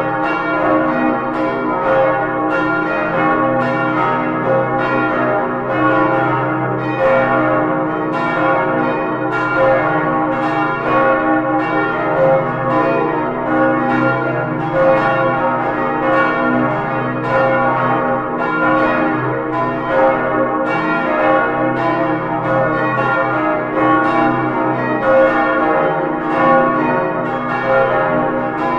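Full peal of five swinging church bells cast in 1947 by Albert Junker of Brilon, tuned D♭, E♭, F, A♭ and B♭. Their strokes overlap in a steady, dense pattern over a sustained hum, heard close up from inside the bell chamber.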